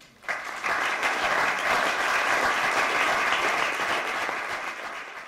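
Audience applauding, starting just after the start, holding steady, then easing off near the end.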